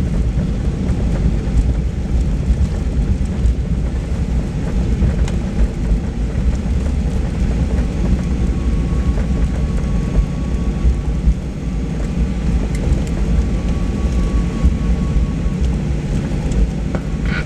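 Cabin noise of a Boeing 737-800 rolling on the ground after landing: a steady low rumble of its CFM56 engines and wheels, with a faint high whine for several seconds in the middle.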